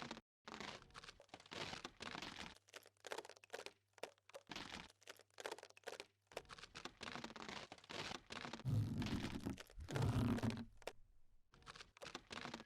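Anime fight sound effects: a run of short impacts, cracks and crunches, with two heavier, deeper thuds about nine and ten seconds in.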